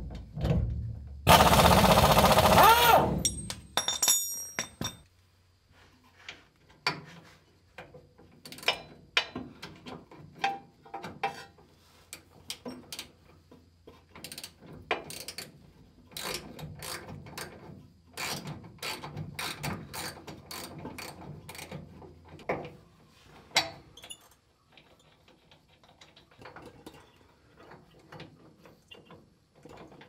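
Socket ratchet and wrench working bolts while the steering rack is being removed: scattered clicks and metal clinks, after a loud burst of noise lasting under two seconds about a second in.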